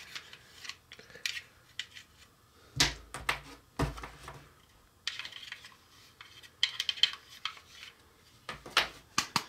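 Hard plastic toy pieces clicking and knocking as they are handled, with two heavier knocks about three and four seconds in. Short scraping sounds as a plastic styling stick digs stuck Play-Doh out of the press.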